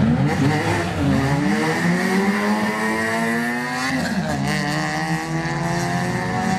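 Drag-racing car's engine accelerating hard, its pitch climbing, dropping briefly at a gear change about four seconds in, then climbing again.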